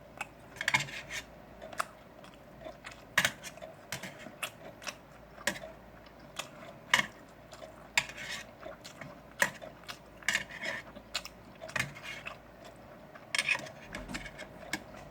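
Eating utensils clicking and clinking against dishes at an irregular pace: a string of sharp taps, some louder than others, during a pork-belly meal.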